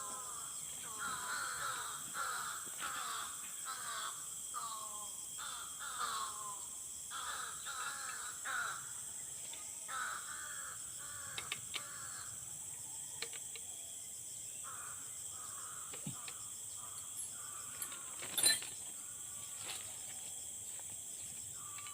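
A bird calling over and over in a run of short calls, about one to two a second, that thin out and fade after about sixteen seconds, with a steady high drone behind. A single sharp click near the end.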